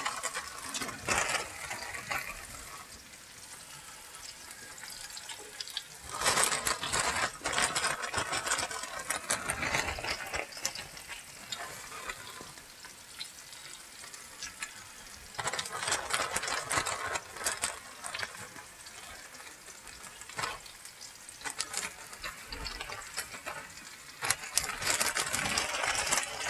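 Cornmeal-coated squash slices tumbled from a plastic zip bag into hot oil in a frying pan, the oil crackling and sizzling in three bursts as batches land, with the plastic bag crinkling.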